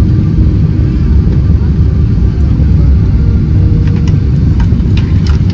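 Steady low rumble of jet airliner cabin noise, with a few faint clicks near the end.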